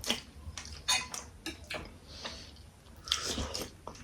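Irregular light clicks and taps of tableware during a meal, several in the first two seconds and a short cluster near the end.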